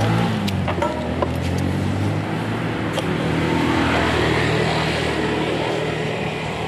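Honda scooter engine running steadily, slowly fading, with a few light clicks about half a second to a second in.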